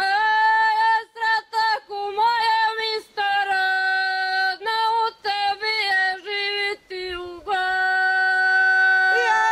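Women singing ojkavica, traditional unaccompanied Croatian folk singing, without instruments. It comes in short phrases broken by brief pauses, with wavering turns in pitch, and settles into a long held note about three-quarters of the way in.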